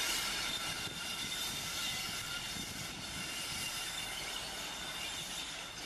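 Class 35 'Hymek' diesel-hydraulic locomotive running on its own, its Maybach V16 diesel engine running steadily as it moves away along curving track. The sound slowly fades as it recedes.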